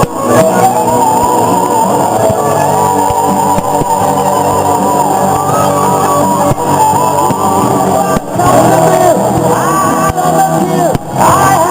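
Rock music with singing, loud and continuous.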